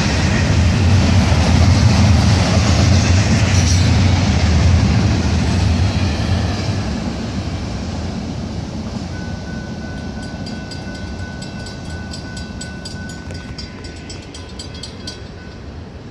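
Freight train rolling past, a heavy low rumble that fades away from about six seconds in. Near the end a thin steady high tone with rapid regular ticking comes through.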